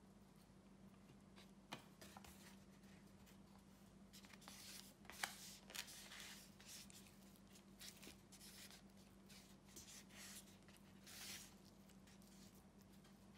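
Faint rustling and rubbing of fingers handling and smoothing thin raw pork loin slices on a foam meat tray, with a few light clicks, over a faint steady hum.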